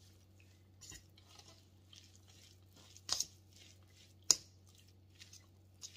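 A fork stirring shredded cheese, chicken and egg in a mixing bowl: quiet squishing with a few sharp clinks of the fork against the bowl, the loudest about three and four seconds in.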